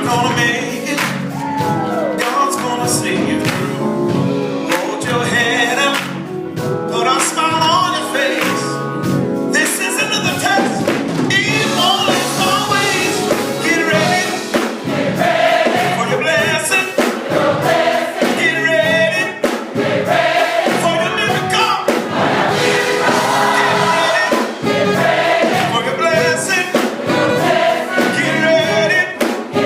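Gospel choir singing, many voices together over musical accompaniment.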